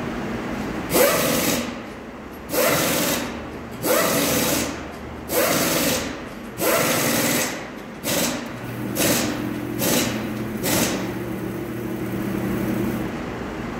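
Pneumatic power tool in a tyre shop run in short bursts, about one every second and a half, then several quicker, shorter bursts near the end.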